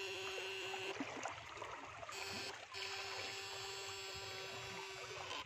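Steady electrical hum from an electric fishing device's power unit. It cuts out about a second in, comes back a second later and stops again near the end.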